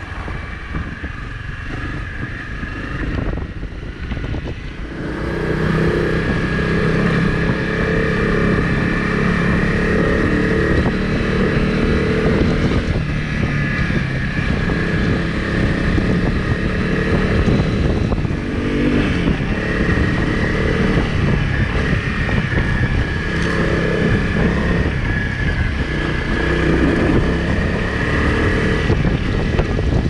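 Honda CRF250Rally's single-cylinder engine running under way, with wind noise on the microphone. The engine comes in louder about five seconds in, and its note rises and falls with the throttle.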